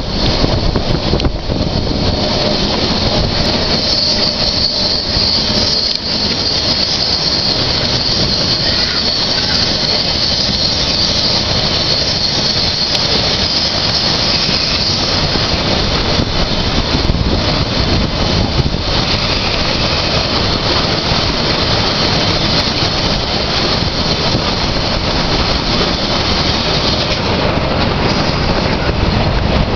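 Railway passenger car rolling along the track: a steady rumble of wheels on rail with a continuous high wheel squeal and a few knocks.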